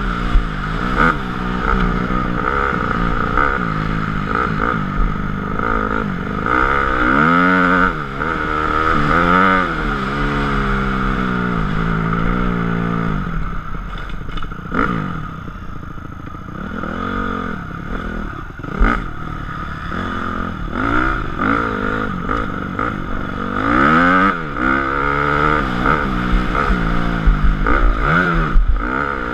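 2004 Honda CRF250R's four-stroke single-cylinder engine being ridden hard, its revs rising and falling over and over with the throttle and gear changes, easing off for a stretch about halfway through. Occasional sharp knocks and clatter come from the bike over bumps.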